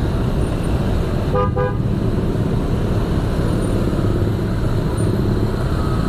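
A vehicle horn gives a short double toot about a second and a half in. Under it runs the steady low rumble of motorcycle engines and wind noise in dense, slow motorcycle traffic.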